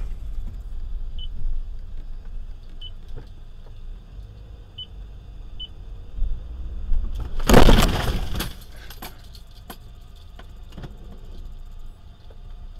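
Car cabin road noise from a moving car, a steady low rumble with four short faint beeps in the first six seconds. About seven and a half seconds in comes one loud bang lasting about a second, a jolt or impact with rattling, followed by a few lighter knocks.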